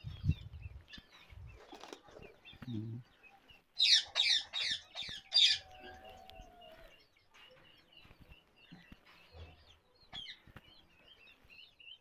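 Ringneck parakeets calling: a quick run of about five loud, harsh squawks about four seconds in, with softer short chirps before and after. A low thump sounds just after the start.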